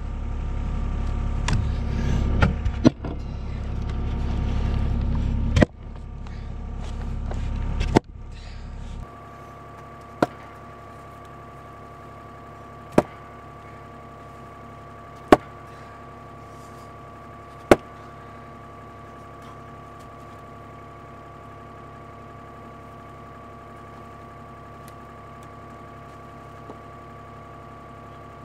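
Excavator's diesel engine running, loud and heavy at first with several abrupt breaks, then settling about nine seconds in to a steadier, quieter hum like an idle. A few sharp clicks are scattered through it.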